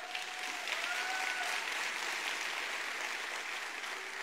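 Audience applauding: steady clapping from a crowd that eases off slightly near the end.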